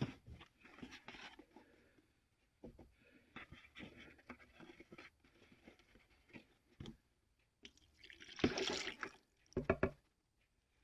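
Liquid splashing and dribbling with small clicks and knocks as rusty steel tools are set to soak in Evapo-Rust rust remover. The loudest stretch of handling and splashing comes near the end.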